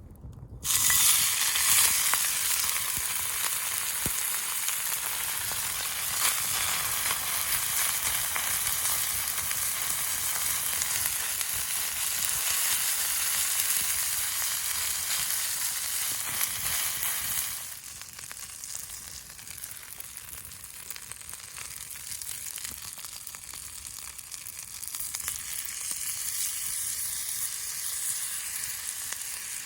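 Food sizzling in a hot pan: a loud frying hiss starts suddenly about a second in, then drops to a quieter, steady sizzle about two-thirds of the way through.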